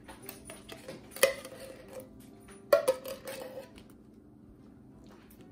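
Apple pie filling tipped out of a tin can into a plastic-lined slow cooker crock: small clicks and soft shuffling, with two sharp, briefly ringing clinks of the can, about a second in and again near three seconds in.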